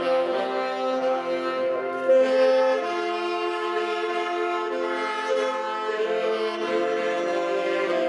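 Saxophone ensemble playing a slow hymn in several-part harmony, with held chords that move to a new chord every second or so.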